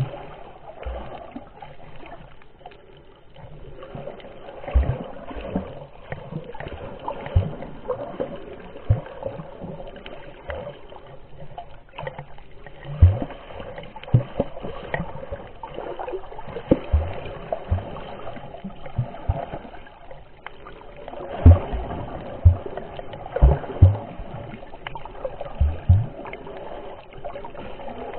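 Muffled underwater sound picked up by a snorkeller's camera: moving water with irregular low knocks, several bunched together about three-quarters of the way through.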